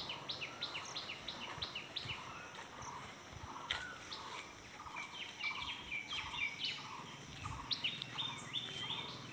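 Several small birds chirping: quick runs of short, repeated chirps over faint outdoor background noise.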